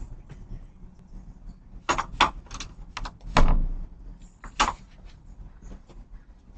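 Several sharp knocks and clatters in quick succession, the loudest about three and a half seconds in, over a steady low hum.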